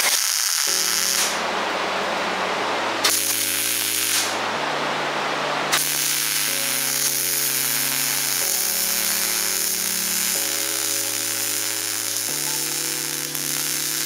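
MIG welder arc crackling and sizzling like frying bacon as steel is welded: two short bursts in the first few seconds, then a continuous bead from about six seconds in. Background music with slow chord changes plays underneath.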